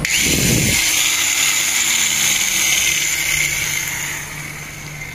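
A motor running steadily, with a hiss and a low tone that slowly slides down in pitch, fading away over the last second.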